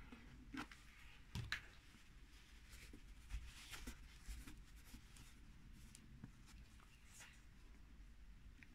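Near silence, with faint rustling and a few soft taps and clicks as hands press and smooth denim fabric down onto hot glue.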